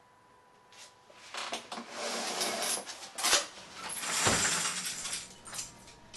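Window blind being pulled and raised by hand: rattling, scraping mechanism noise with sharp clicks in several bursts, loudest around the middle, then fading to a few light ticks.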